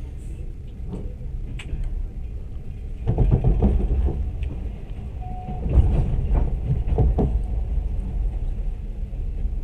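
Moving train: a steady low rumble with irregular knocks and rattles, growing louder about three seconds in and again around six seconds.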